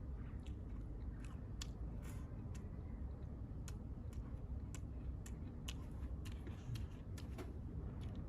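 A person chewing a mouthful of food close up, with small sharp clicks about once or twice a second over a low steady rumble.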